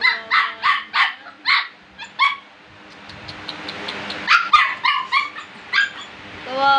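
Puppy yapping in short, high barks: a quick run of about seven, a pause of a second or so, then another run of several more.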